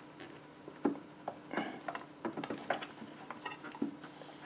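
Glass pane and plastic door frame of a Power XL Vortex air fryer oven clicking and tapping irregularly as the pane is pressed and worked into the frame to snap it in place.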